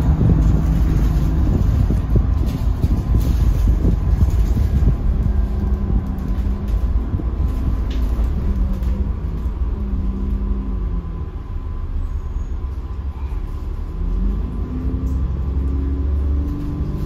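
Diesel engine and road rumble of an Alexander ALX400 double-decker bus, heard from the upper deck as it runs. There is a steady low drone, and the engine note changes pitch several times, climbing again near the end.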